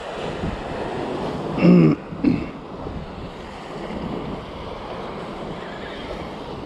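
Sea waves washing against the rocks, with wind on the microphone. A short, pitched, voice-like sound comes twice about two seconds in and is the loudest thing heard.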